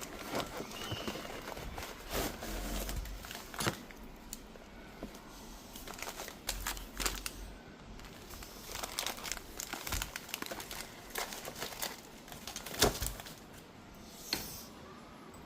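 Plastic packaging crinkling and rustling as items are handled, with scattered clicks and knocks, one sharper knock near the end.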